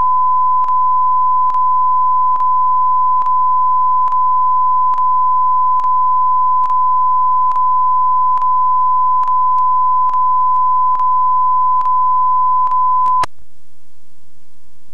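A steady, loud, pure test tone recorded on videotape, with a faint click a little more than once a second. About 13 seconds in it cuts off suddenly, giving way to a quieter, even hiss of blank-tape static.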